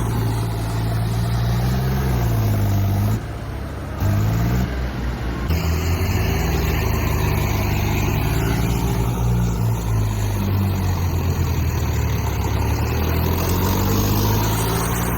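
Heavy diesel engine running under load, its pitch rising and falling as it is revved up and eased off, with a short drop in loudness about three seconds in.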